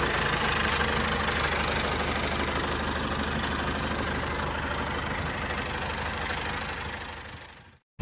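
Tractor engine running steadily, then fading out near the end.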